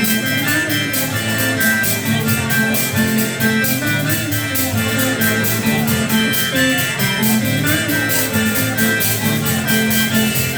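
Music with a steady beat and sustained melodic instruments.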